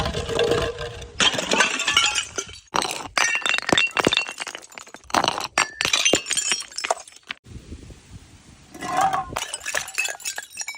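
Glass bottles smashing, with repeated sharp cracks and the clink and tinkle of shards. There is a short lull past the middle, then more breaking near the end.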